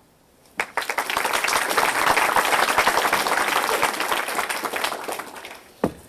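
Audience applauding, starting about half a second in, holding strong and then dying away over about five seconds, with a single thump just before the end.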